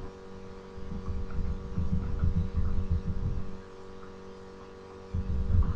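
Irregular low, muffled rumbling and thumping from rope and hands being handled right up against the camera's microphone. It starts about a second in, pauses, and comes back near the end, over a steady electrical hum.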